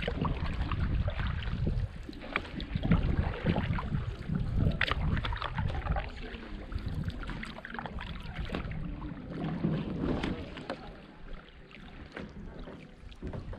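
Kayak paddling on calm water: paddle splashes and drips and water lapping at the hull, over wind rumbling on the bow-mounted microphone that eases off near the end.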